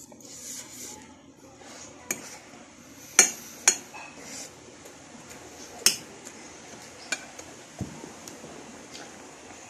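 Metal spoon clinking and scraping against a bowl while eating rice: about half a dozen sharp, irregular clinks, the loudest two close together about three seconds in and another near six seconds.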